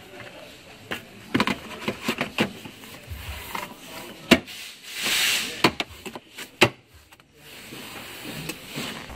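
Plastic trunk trim panels being pressed and snapped back into place by hand: a run of sharp clicks and knocks with some rubbing and scraping. The loudest knocks come about four and a half and six and a half seconds in.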